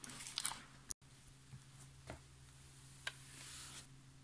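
Faint rustling of a padded quilt's fabric as it is handled and lifted, with a few light clicks and taps. A low steady hum runs underneath.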